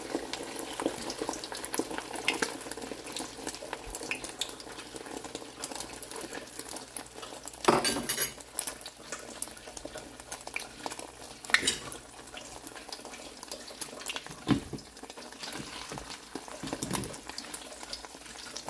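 Beaten eggs sizzling and crackling in hot oil in a square nonstick frying pan. A few louder clinks of utensils break in, the loudest about eight seconds in.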